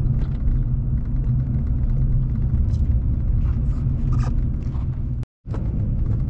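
Steady low road and engine rumble of a car driving, heard from inside the cabin. It cuts out to silence for a moment about five seconds in.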